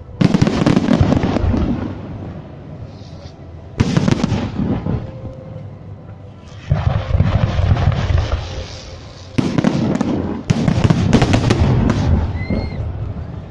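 Aerial fireworks shells bursting overhead: five loud bangs a few seconds apart, the last two close together. Each bang is followed by a dense crackle of many small pops that fades away.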